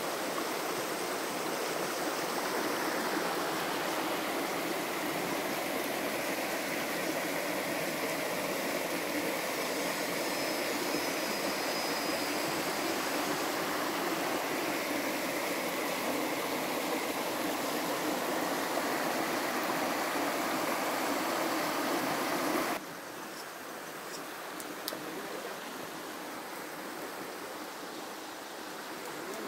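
Small stream running over stones, a steady rushing of water that suddenly becomes quieter about three-quarters of the way through.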